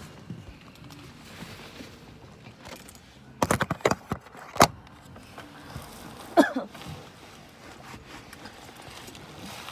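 Getting into a car and handling its door: a quick clatter of clicks and rattles about three and a half seconds in, then a single sharp knock a second later, and a short squeak falling in pitch about six and a half seconds in.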